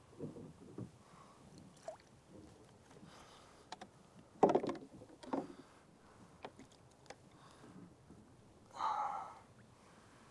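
Scattered knocks and handling noises while a hooked smallmouth bass is fought and landed at the river's edge. There is one sharp, loud knock about four and a half seconds in, and a short rushing burst near the end.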